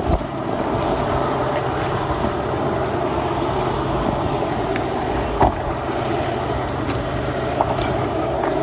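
Motor vehicle engine running steadily with a constant low rumble, with one short sharp click about five and a half seconds in.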